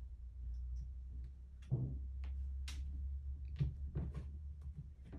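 A cat rummaging in a clear plastic drawer and dragging clothes out: irregular rustles of fabric with light knocks and clicks from the plastic drawer, the sharpest knock just under two seconds in.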